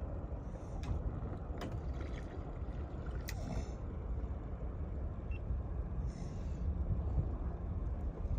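A steady low rumble, with a few sharp clicks about one, one and a half and three seconds in.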